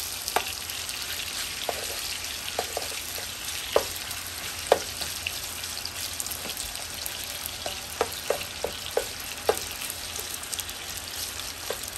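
Chicken thighs browning in about half a cup of hot cooking oil in a pot over medium-high heat: a steady sizzle with scattered sharp pops.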